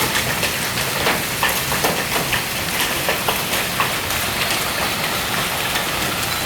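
Hail falling hard: a steady dense hiss of rain and hail with many irregular sharp ticks of hailstones striking hard surfaces.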